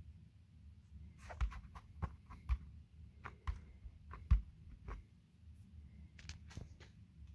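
A hand pressing and tapping on a Skar Audio subwoofer's cone and dust cap, giving a series of short clicks and soft thumps. The loudest comes a little past four seconds in. A faint low hum runs underneath.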